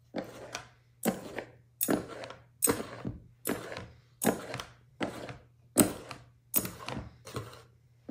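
Two table knives dragged crosswise through flour in a mixing bowl, scraping in a steady rhythm of about ten strokes, one every 0.8 seconds or so: the cutting-in motion used to work butter into pastry dough.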